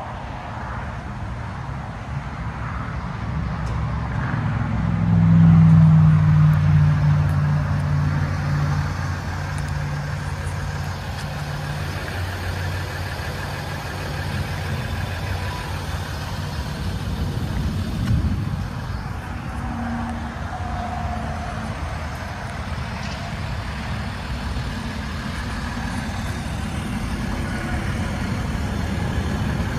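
Steady low rumble of a vehicle engine. A pitched engine hum swells about five seconds in and fades away over the next several seconds.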